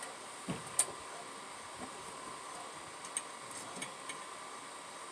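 A few scattered light clicks and taps of small parts and hand tools being handled, the sharpest a little under a second in, over a steady faint hum.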